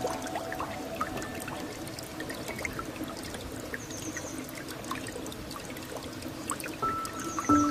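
Water trickling and pouring, a steady stream sound with many small drips. A soft held music tone fades out at the start and new tones come in near the end. A brief high trill sounds about four seconds in and again shortly before the end.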